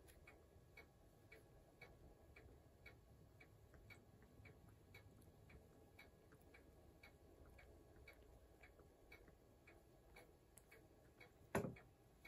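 Faint, even ticking of a clock, about two ticks a second, with one louder knock near the end.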